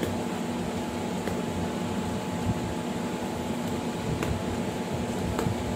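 Steady machine hum and hiss, like a running room fan, with a few faint short clicks.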